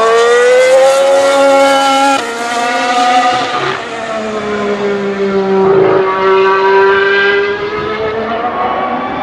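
2016 Formula 1 cars' 1.6-litre V6 turbo hybrid engines running hard on track. The note climbs, drops sharply at a gear change about two seconds in, then settles to a lower, steadier pitch with another shift about two-thirds of the way through.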